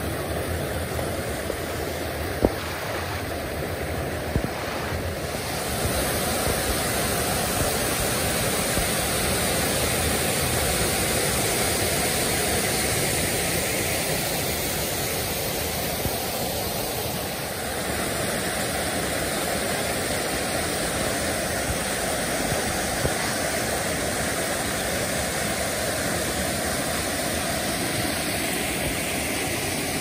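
Rushing water of a clear mountain stream tumbling over rocks and small cascades into pools, a steady rush. A single sharp tick about two and a half seconds in.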